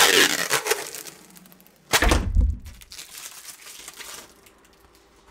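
Blue protective plastic film being peeled off a thin aluminium sheet, a loud crackling rip at the start that tails off into crinkling. About two seconds in comes a single loud low thump.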